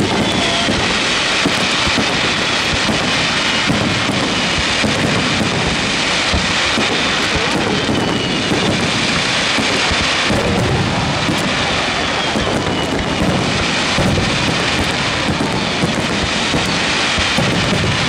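Fireworks display: aerial shells bursting one after another, their bangs running together into a continuous rumbling, crackling din.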